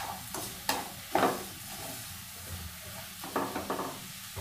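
Wooden spatula stirring and scraping coarse roasted chana dal powder and sugar in a nonstick kadhai, over a steady sizzle of ghee. There are several louder scrapes, about a second in and again towards the end.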